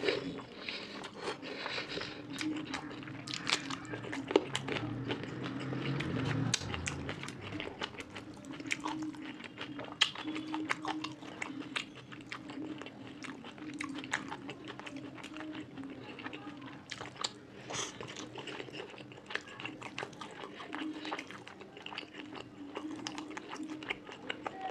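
Close-up eating sounds: a person chewing a mouthful of rice and fish curry, with frequent wet clicks and smacks of the mouth, over a steady low hum.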